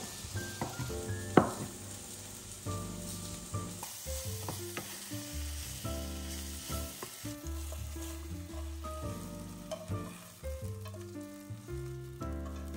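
Eggplant strips sizzling as they fry in oil in a frying pan, stirred with a wooden spatula. In the first second or so a chef's knife knocks a few times on a wooden cutting board as it slices a boiled egg, one knock much louder than the rest.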